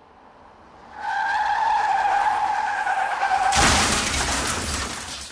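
Tire squeal holding one steady pitch for about two and a half seconds, then cut into by a loud rushing noise with a deep rumble that fades away.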